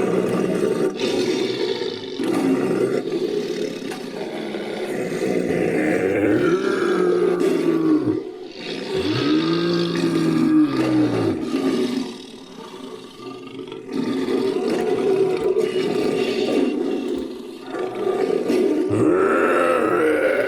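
Designed creature roars and growls, layered from animal roars and a human voice, following one another almost without a break. Several long roars rise and fall in pitch, and there is a quieter, lower growling stretch about two-thirds of the way through.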